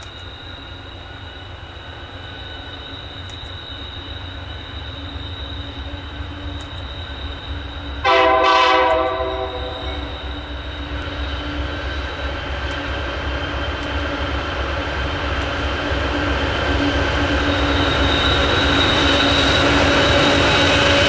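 Train drawing closer and getting steadily louder, with wheel flanges squealing against the rail in thin, steady high tones. About eight seconds in, the locomotive's air horn gives a short blast of about a second.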